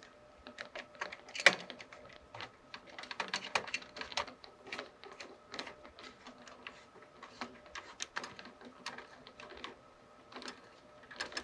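Screwdriver tightening the screws of a CPU heatsink onto the motherboard, making irregular light clicks and ticks, with one sharper click about a second and a half in.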